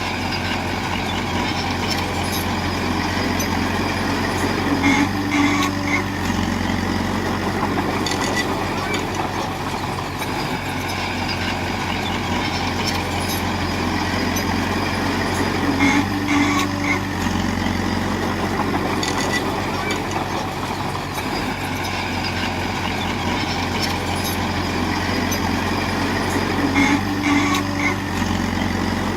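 Heavy diesel engine of a construction machine running steadily under load. About every eleven seconds a short higher-pitched squeal sounds and the engine note shifts, like a repeating work cycle of pushing and reversing.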